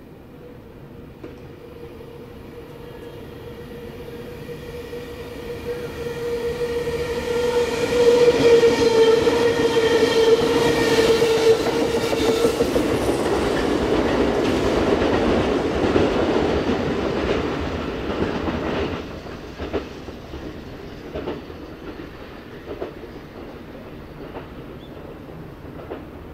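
East-i electric inspection train passing: a steady single-pitched whine grows louder as it approaches and stops about twelve seconds in, then the rush of the cars going by, which drops off sharply about nineteen seconds in, leaving wheel clicks over the rail joints as it moves away.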